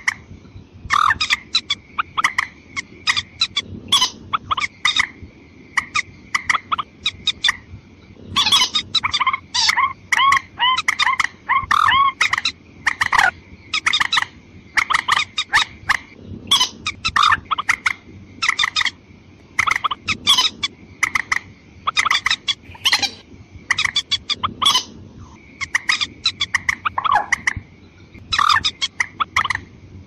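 Watercock calls used as a hunting lure to draw in females and males: rapid series of short notes repeated in dense bouts with brief gaps, over a thin steady high tone.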